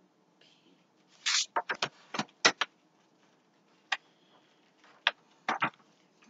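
A quick run of sharp taps and knocks about a second in, then a few single taps near the end: handling noise from hands striking or touching things.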